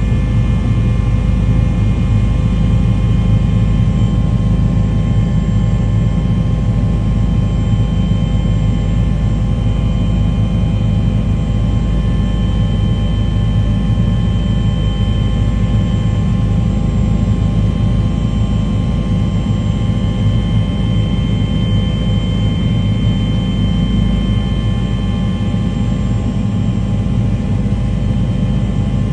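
Steady engine drone: a low rumble with several constant hum tones, unchanging throughout.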